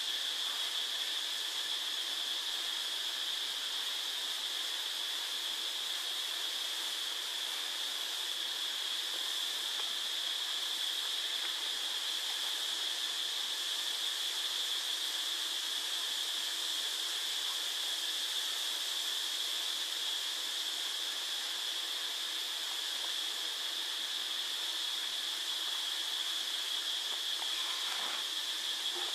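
A steady, high-pitched hiss with no distinct events, running evenly throughout; a faint, brief sound comes near the end.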